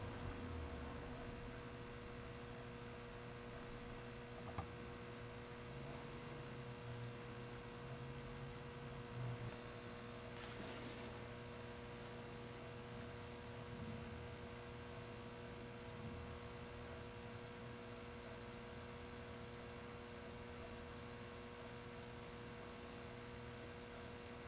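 Steady, faint electrical hum over a low hiss, with a single soft click about four and a half seconds in.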